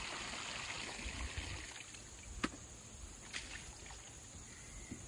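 Creek water running and trickling, louder for the first couple of seconds and then fading, with one sharp click about two and a half seconds in and a fainter one about a second later.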